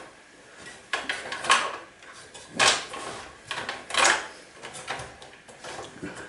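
A bundle of cables and a metal connector bracket being yanked and scraped against a metal computer case, with rattling and a series of irregular sharp knocks. The cables are stuck and resist being pulled free.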